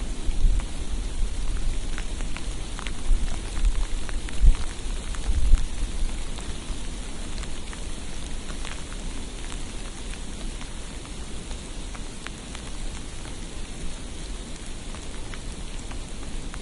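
Outdoor street ambience during a snowfall: a steady, rain-like hiss with scattered light ticks of flakes or drips. Low rumbles come and go in the first several seconds, loudest about four and a half seconds in, then the hiss carries on alone.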